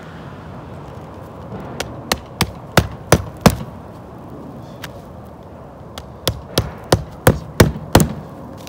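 Hammer driving roofing nails through an asphalt ridge cap shingle: two runs of about six sharp strikes each, roughly three a second, one nail per run, the first run getting louder as the nail goes home.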